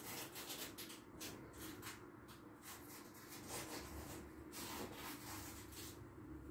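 Faint, irregular rubbing and scraping of hands gripping and turning a wall clock, over a steady low hum.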